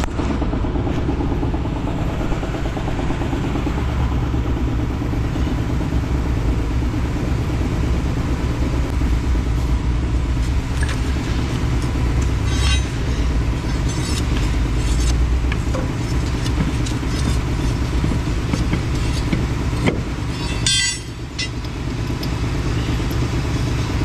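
An engine running steadily at idle with a low, even rumble, broken by a few sharp metal clicks and clanks, the strongest near the end.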